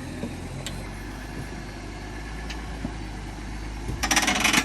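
Off-road vehicle engine idling steadily, with a loud, harsh burst of noise lasting about half a second near the end.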